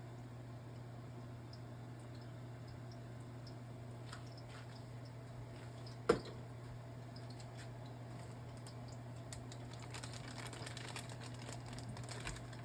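Hot oil crackling and spattering in a frying pan, a scatter of small pops that grows denser near the end, over a steady low hum, with one sharp click about six seconds in.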